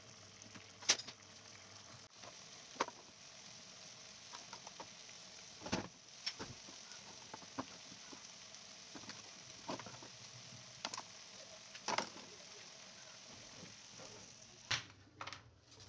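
A pan of diced vegetables in tomato sauce simmering on a gas burner: a steady faint sizzle, with scattered sharp clicks and pops through it.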